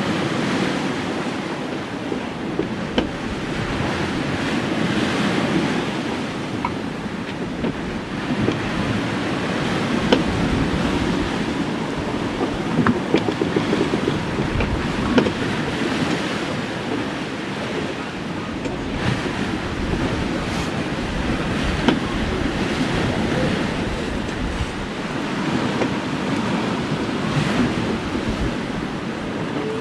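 Seawater washing and rushing along the hull of a two-masted sailing schooner under way, swelling and easing with the waves, with wind on the microphone. Scattered small knocks and clicks come through, the sharpest about ten, thirteen, fifteen and twenty-two seconds in.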